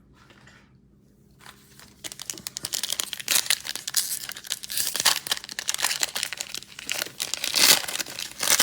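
Trading card pack wrapper being torn open and crinkled. Near-quiet at first, then a dense run of rapid crackling rustles starting about two seconds in.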